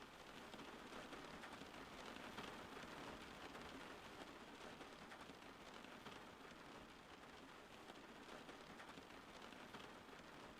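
Faint, steady rain falling, an even hiss with no thunder.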